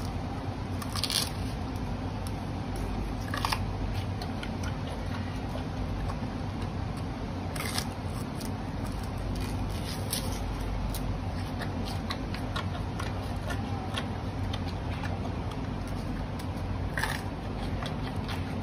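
Giant panda biting and chewing raw carrots: a run of crisp crunches and crackles, a few bites sharper than the rest, over a steady low hum.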